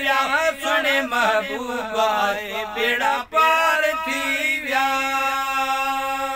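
Men's voices singing the closing phrase of a Sindhi naat refrain. About two-thirds of the way through, the melody settles into one long held note.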